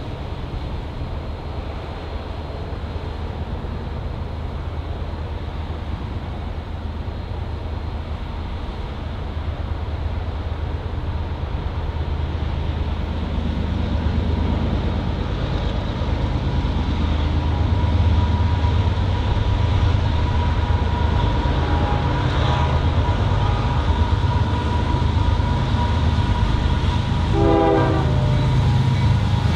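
Diesel locomotive of an approaching train, its low engine drone growing steadily louder through the second half. A short horn note sounds about two seconds before the end.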